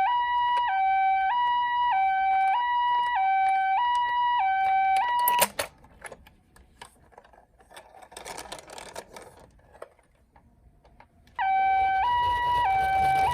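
Toy ambulance minicar's electronic two-tone siren, a Japanese-style hi-lo "pee-po" alternating about every half second. It cuts off with a sharp click about five seconds in, leaving faint rustling, then starts up again near the end.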